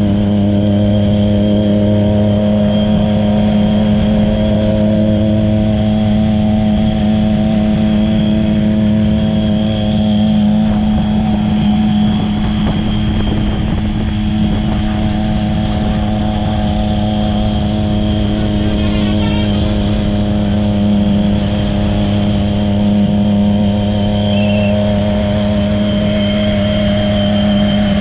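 Triumph Daytona's three-cylinder engine running at a steady cruising speed, its note unchanging, with a high steady whistle over it and wind rush.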